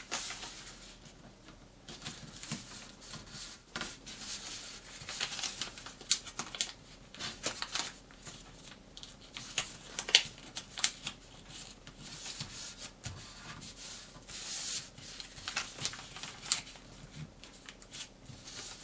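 A square of paper rustling and crackling under the fingers as its corners are folded in to the center and the folds creased flat. Irregular crisp crinkles, the sharpest about ten seconds in.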